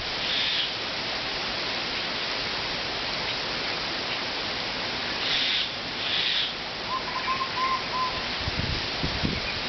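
Wind blowing steadily, a rushing hiss with a few stronger surges, and gusts buffeting the microphone with a low rumble near the end.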